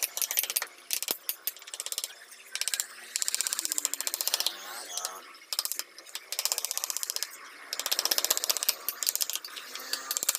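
A wooden mallet tapping a carving chisel into wood in quick, light strokes, in bursts of a second or two with short pauses between them.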